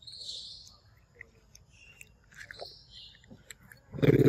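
A macaque chewing and biting soft papaya flesh, with one short, louder sound near the end.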